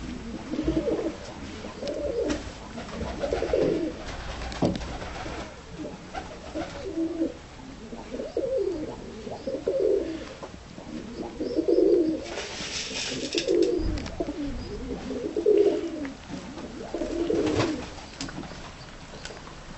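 Dönek (Turkish roller) pigeons cooing, one low rolling coo after another with short pauses between.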